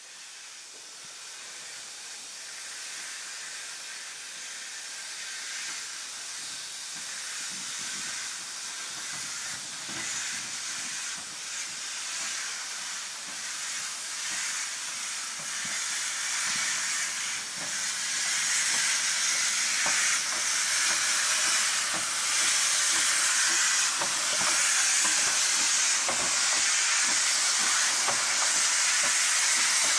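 Saddle tank steam locomotive National Coal Board No. 49 hissing steam as it moves slowly past, the hiss growing steadily louder as it comes near. A few faint knocks sound through the hiss.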